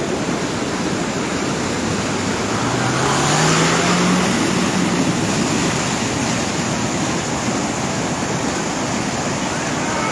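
Steady rush of floodwater. About two and a half seconds in, a vehicle's engine rises in pitch as it pushes through the water, with a surge of splashing for a second or two.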